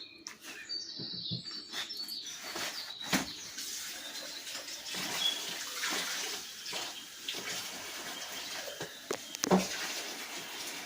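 A steady hiss of kitchen noise with a few sharp knocks, one about three seconds in and another near the end.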